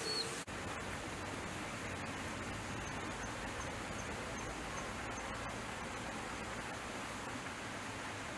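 Steady, even outdoor hiss of ambient background noise, like distant running water or wind. Between about three and five seconds in, a faint series of short high chirps comes about three a second.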